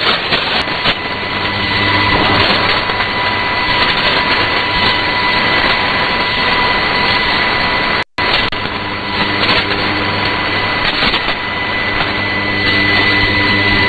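Shortwave radio reception between station announcements: steady static hiss with a steady high whistle running through it. The sound cuts out completely for a moment about eight seconds in.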